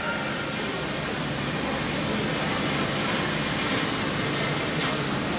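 CNC router spindle running, its long end mill cutting a styrofoam block: a steady whirring noise with a faint low hum.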